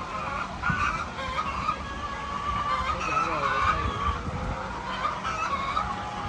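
A flock of chickens calling all at once, many overlapping squawks and clucks making a constant din, with a few low thumps.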